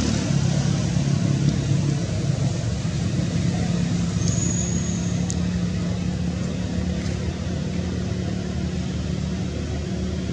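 A motor vehicle's engine running with a steady low hum that slowly fades.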